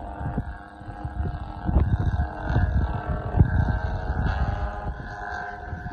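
Drone of a 25% scale Beechcraft Starship radio-controlled model aircraft flying overhead, a steady tone with several pitches that drifts slightly. Gusts of wind buffet the microphone, loudest around the middle.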